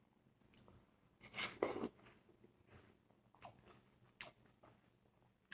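Biting into and chewing a firm piece of watermelon flesh near the rind, with one loud wet crunch about a second in and softer chewing smacks after.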